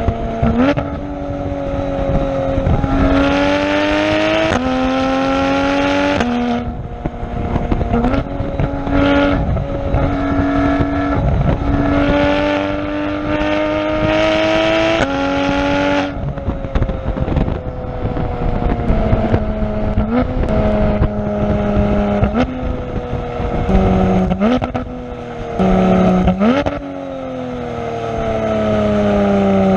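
Porsche 991 GT3's naturally aspirated flat-six exhaust, heard close at the tailpipes while the car is driven. Through the first half the revs rise and drop repeatedly with the gear changes. In the second half the revs fall as the car slows, with a run of quick downshifts, each a sudden jump in engine pitch, before the revs fall away steadily near the end.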